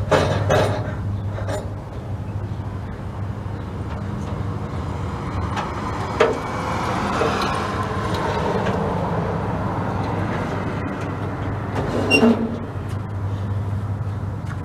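A car passing on the road, swelling and fading midway, over a steady low hum. Sharp metallic clunks come near the start and again about twelve seconds in.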